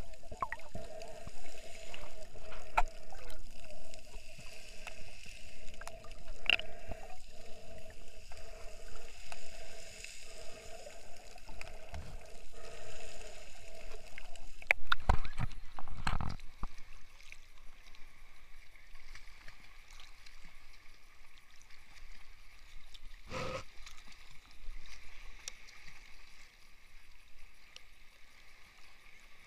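Muffled underwater water noise picked up by a submerged camera, with a steady hum through roughly the first half. A few sharp knocks come about halfway through and one more later, then the water noise goes quieter.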